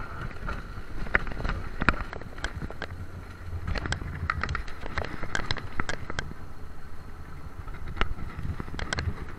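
Alpine coaster sled running down its steel rail track: a steady low rumble from the wheels with frequent irregular sharp clacks, and a faint steady whine.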